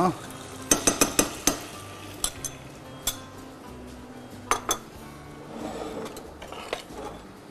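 A spoon and dishes clinking against a saucepan and bowl as tomato paste is spooned into the pan: a quick run of knocks about a second in, then a few scattered single clinks.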